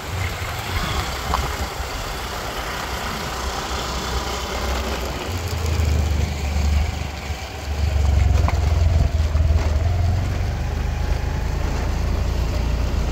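A vehicle driving along a road, heard as a loud, uneven low rumble that grows heavier about five seconds in and again about eight seconds in.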